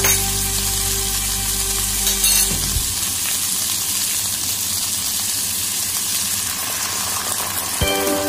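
Sliced tomatoes and onions frying in a pan with a steady sizzle.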